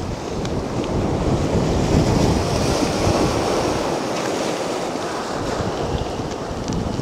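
Mediterranean sea waves breaking and washing onto the beach, swelling about two seconds in and then easing off, with wind buffeting the microphone.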